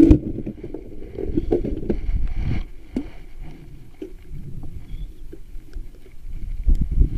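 Low rumbling noise of wind and water around a small wooden boat at sea, with scattered knocks from handling fishing gear: a loud knock right at the start and another near the end.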